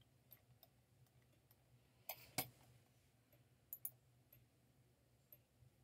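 Near silence with a few faint computer mouse clicks: two sharp clicks about two seconds in and a quick pair near four seconds, over a low steady hum.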